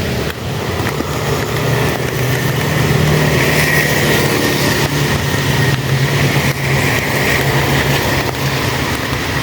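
Heavy rain falling steadily, with a continuous low hum running under it.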